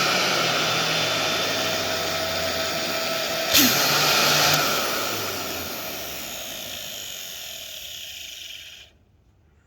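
DeWalt 20V Max cordless palm sander running with its O-ring drive belt removed, a whirring motor sound that gradually fades, with a sharp click about three and a half seconds in. The sound stops abruptly near the end.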